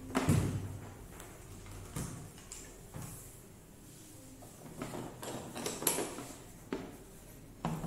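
Scattered light knocks and clicks, about seven, spread over several seconds with quiet between them. They come from handling a corded reciprocating saw, its power cord and its plastic carry case.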